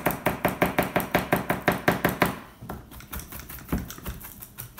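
Chef's knife chopping fresh flat-leaf parsley on a cutting board: quick, even strokes, about eight a second, that stop about halfway through, followed by a few scattered lighter taps.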